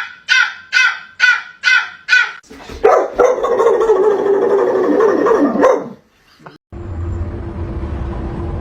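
A small dog barking in a quick run of about six sharp barks, a little over two a second, then letting out a long wavering cry for about three seconds. Near the end a steady low rumble with a faint hum takes over abruptly.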